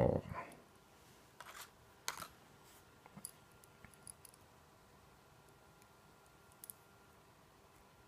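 A few scattered light clicks and ticks of a small precision screwdriver and tiny phone screws being handled, the loudest about two seconds in.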